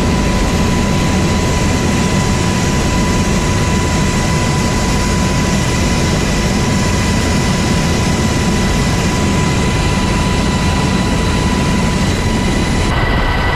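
Loud, steady aircraft engine noise with a constant high whine running through it.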